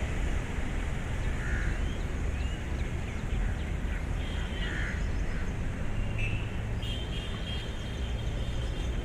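Outdoor background with a steady low rumble, and birds chirping over it in short rising calls. Near the end, a high call is held steadily for a few seconds.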